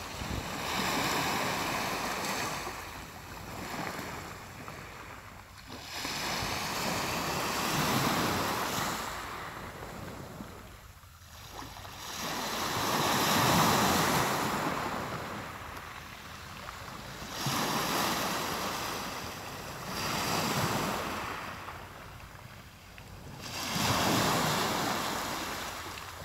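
Sea waves breaking on the shore: about six swells of surf, each rising and washing back every four to five seconds.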